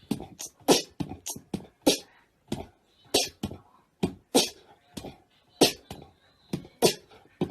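An uneven run of sharp clicks, roughly three a second.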